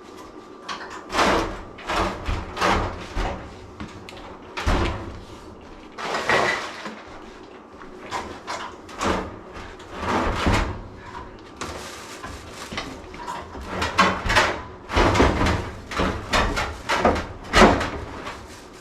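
A long run of irregular knocks, clunks and scrapes from handling tools and fittings, some like cabinet doors or drawers bumping.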